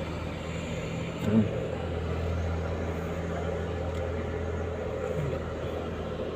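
A steady low machine hum, like a running engine. A short knock comes about a second in, and after it the low hum grows stronger.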